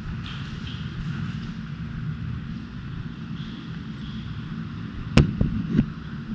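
Steady low rumble of movement and gear rubbing against the body-worn camera. About five seconds in comes one sharp crack, the airsoft shotgun firing, followed by a couple of quieter clacks.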